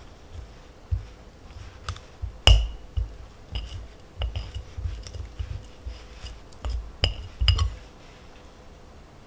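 Small wire whisk clinking and scraping against a glass mixing bowl as softened butter is creamed by hand, in irregular strokes. The loudest clinks come about two and a half seconds in and again near the end, and the strokes stop about eight seconds in.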